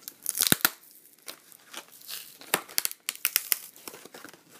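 Plastic packaging crinkling as a seal is peeled off, in short irregular crackles. They are loudest about half a second in and again around the three-second mark.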